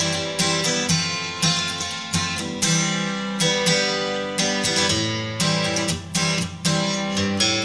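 Background music: an acoustic guitar strummed in an even rhythm, about two strums a second.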